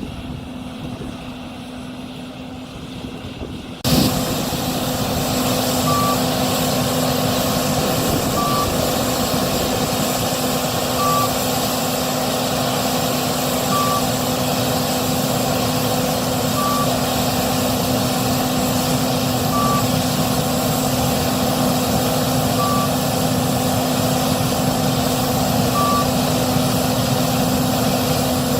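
Case IH 6140 combine running steadily during soybean harvest. It jumps louder with a knock about four seconds in. A short electronic beep sounds about every three seconds over the machine hum.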